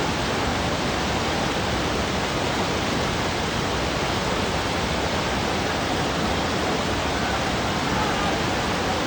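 Steady rush of whitewater in the Ganga rapids, a dense even noise with no breaks, with faint voices near the end.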